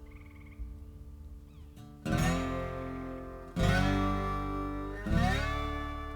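Background guitar music: a held chord, then three strummed chords about a second and a half apart, the notes sliding in pitch into each chord.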